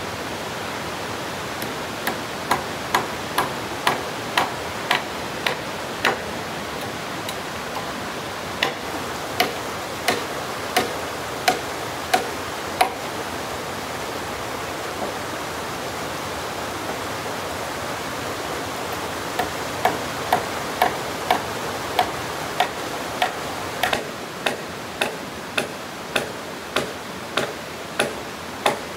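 Regular knocks of a hand tool striking wood, about two a second, in three runs with pauses between, as in hammering or chopping timber. A steady hiss runs underneath.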